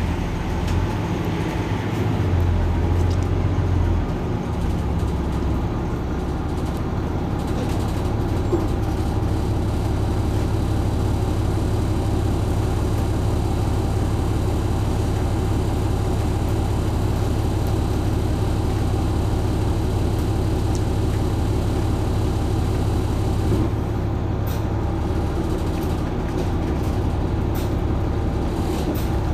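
Mercedes-Benz Citaro C2 city bus idling at a stop: a steady low engine hum, whose low note shifts slightly about four seconds in.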